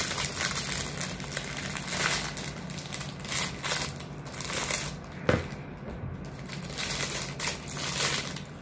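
Clear plastic bag crinkling and rustling as a small phone-holder mount is pulled out of it, with a sharp click about five seconds in.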